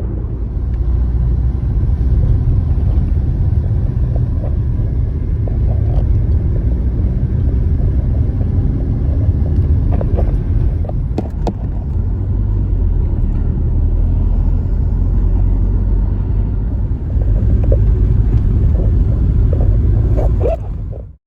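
Van driving on the road: a steady low rumble of engine and tyres, with a few light knocks about halfway through and near the end, then it cuts off suddenly.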